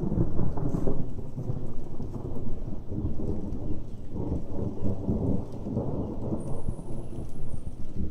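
Rolling thunder: a low rumble that is loudest at the start, dies down, then swells again about four seconds in.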